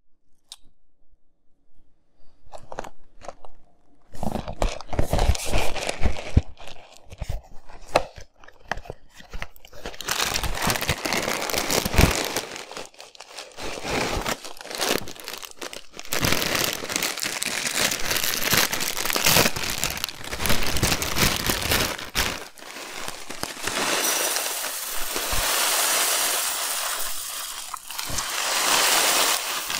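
A cereal box being handled and its plastic inner bag crinkling and tearing open, then Fruity Pebbles rice cereal pouring from the bag into a glass bowl as a steady hiss over the last few seconds.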